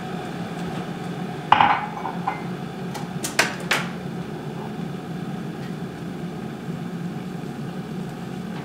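Refrigerator door being opened, with a brief rustle and a few sharp clicks and knocks from it and the jars and bottles in its door shelves, over a steady low hum in the kitchen.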